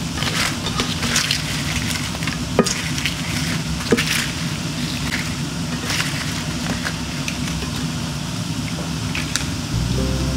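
Wonton wrappers deep-frying in hot oil, a steady sizzle, stirred with a slotted spoon that gives a few sharp taps against the pan.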